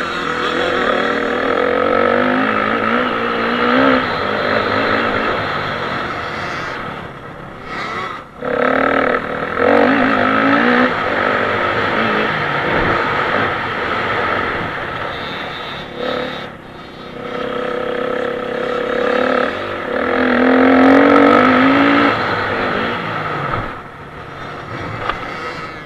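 Dirt bike engine heard from the rider's onboard camera, revving up through the gears and easing off over and over, with the throttle snapped shut briefly three times.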